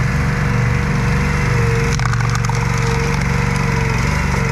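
Wood splitter's small engine running steadily, with a short burst of sharp cracking about two seconds in as the splitter's wedge breaks through a battery.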